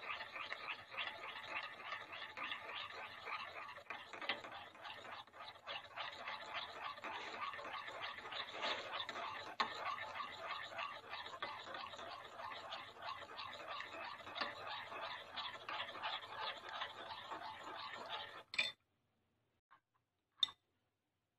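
Metal spoon stirring a wet egg-and-seasoning mixture in a ceramic bowl, a steady run of quick clinks and scrapes against the bowl. It stops abruptly near the end, followed by two faint clicks.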